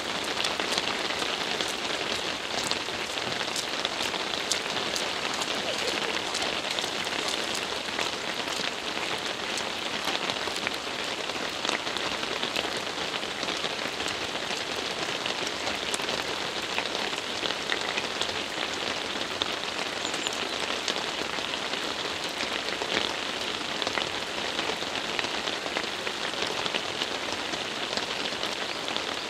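Steady rain falling on a wet paved road and the vegetation around it, an even hiss with many close, sharp drop ticks scattered through it.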